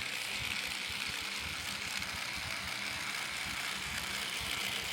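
3D-printed robot actuator running steadily: a 5010 brushless motor under FOC control driving a 10:1 cycloidal gearbox, giving a continuous mechanical whirr with a grainy, rattly gear noise.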